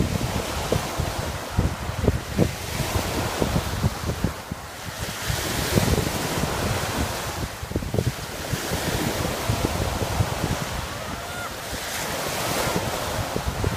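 Small ocean waves breaking and washing up the sand, swelling into a louder wash every few seconds. Wind buffets the microphone with a low rumble.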